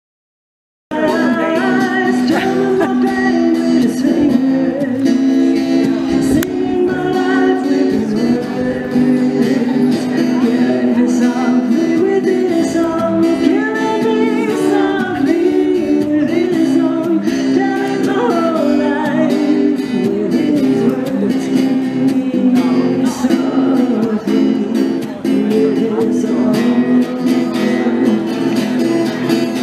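A woman singing into a microphone while strumming an acoustic guitar, as street busking. It starts abruptly about a second in and continues without a break.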